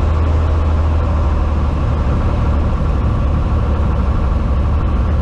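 Cessna 182T's six-cylinder Lycoming IO-540 engine and propeller running steadily on approach, a constant drone with a strong low hum.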